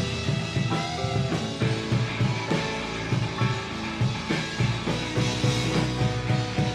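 Band music without vocals: a drum kit keeping a steady beat under sustained instrument notes, an instrumental passage of a song.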